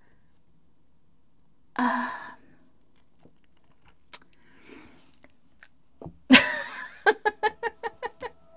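A woman overcome with emotion: a short voiced breath about two seconds in, then a sudden sharp gasp near the end that breaks into a fast run of short voiced sobs, about six a second.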